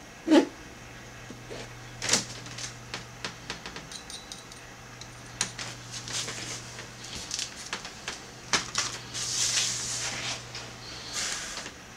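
Irregular small clicks, taps and scratches of handling at a calligraphy desk, with a louder knock just after the start and a short stretch of scraping around two-thirds through, over a steady low electrical hum.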